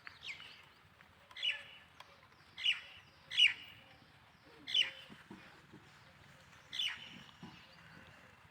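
A series of about six short, high-pitched animal calls, each falling quickly in pitch, coming at irregular intervals.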